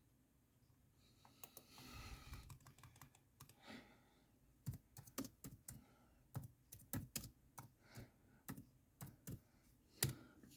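Faint typing on a computer keyboard: irregular key clicks, a couple a second, starting about a second and a half in, with one louder click near the end.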